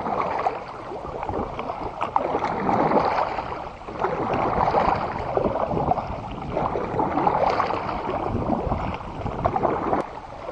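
Kayak paddle strokes splashing and pulling through river water, the water noise swelling every two to three seconds with each stroke.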